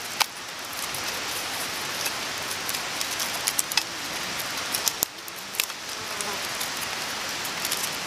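Dry grass fibres and twigs rustling and crackling as they are wound and tied by hand, close to the microphone: scattered small clicks and ticks over a steady hiss.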